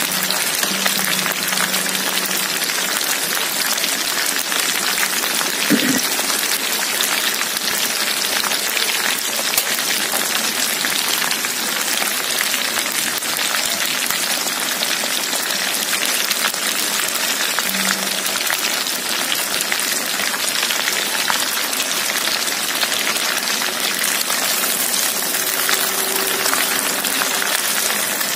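Corn-flour-coated prawns deep-frying in hot oil in a wok: a steady, dense crackling sizzle.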